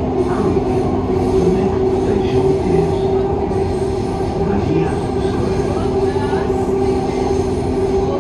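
Dubai Metro train running between stations in a tunnel, heard from inside the carriage: a steady rumble of wheels on the rails with a steady hum over it.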